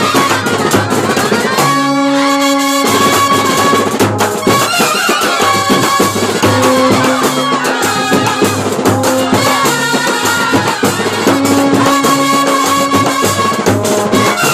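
Kerala bandset brass band playing: trumpets and clarinets holding notes over busy drumming on toms, slung side drums and cymbal, with a quick drum roll about two seconds in.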